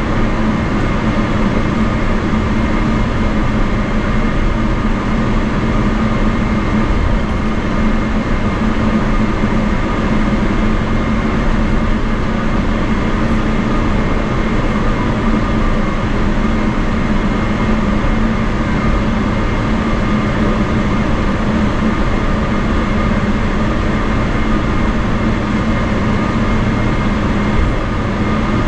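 Inside the cabin of a Boeing 777-300ER taxiing, beside its GE90-115B engine running at idle. A steady hum with a low rumble from the aircraft rolling along the taxiway, unchanging throughout.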